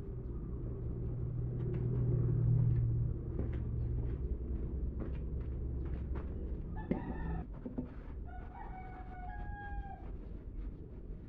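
A rooster crows about seven seconds in, with one long held call that tails off downward. Under it there is a low steady hum, louder in the first few seconds, and scattered small clicks.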